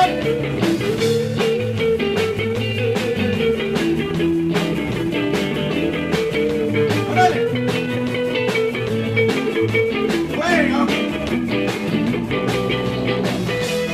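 Live rock and roll band playing: electric guitars and bass over a drum kit keeping a steady beat.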